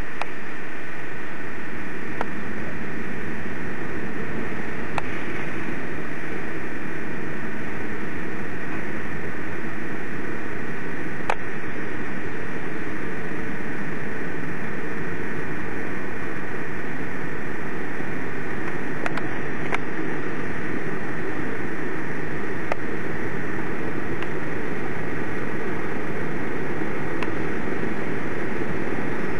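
Steady, unbroken noise of a ship under way, its engine hum blended with wind and rushing water, with a few faint clicks.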